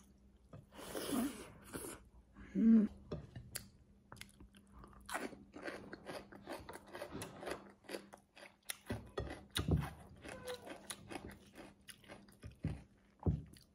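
Close-up chewing and biting of goat rib meat and rice eaten by hand, with many short, irregular crunchy mouth clicks.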